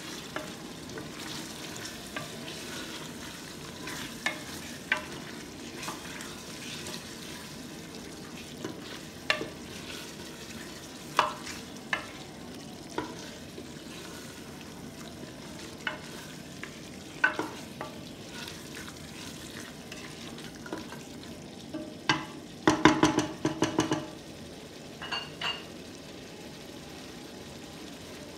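A wooden spatula stirring beef curry in a metal pressure cooker pot, knocking and scraping against the pot now and then over a steady low sizzle of frying. A quick run of knocks about 23 seconds in is the loudest moment.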